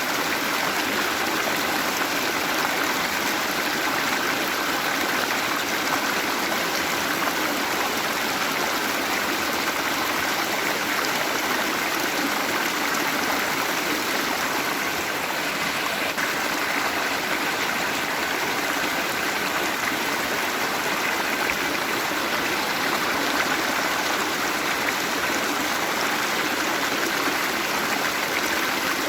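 Waterfall: water falling and running steadily, an even rushing and splashing.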